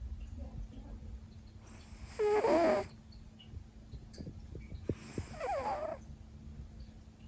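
Siberian cat snoring in its sleep: two loud snoring breaths, one about two seconds in and a slightly quieter one about five seconds in, each with a wavering pitched tone in it.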